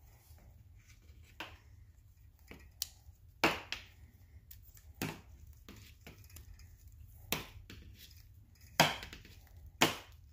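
Scattered sharp clicks and knocks of small parts and a hand tool, about eight in all and irregularly spaced, as a heater tube is slid onto a carburetor and tightened down. The loudest knocks come near the end.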